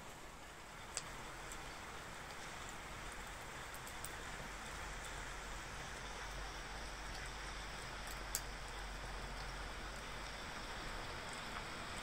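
Steady hiss of falling rain with a small wood-and-charcoal fire burning in an open grill, a few sharp crackles standing out: one about a second in and a louder one near eight seconds.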